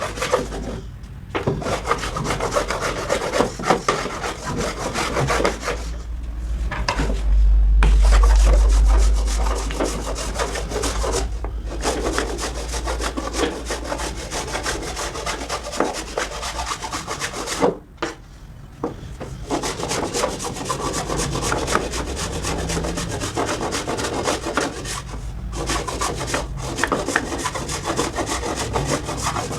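Wood being cut or scraped on a turning lathe, a continuous rough scraping broken by several short pauses, over a low motor hum.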